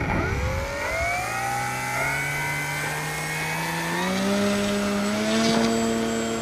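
RC model floatplane's motor and propeller throttling up for a takeoff run on water: a whine that starts suddenly and rises steadily in pitch, steadying near the end.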